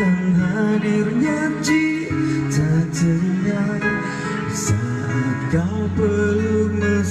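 A slow song played on acoustic guitar, with a held melody line that bends between notes over the strumming.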